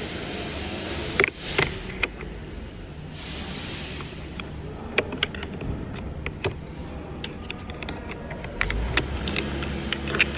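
Plastic pry tool working at a truck door's interior trim, with sharp clicks and snaps of trim clips and plastic scattered through, thickest in the second half. A steady hiss comes and goes early on, and a low steady hum comes in near the end.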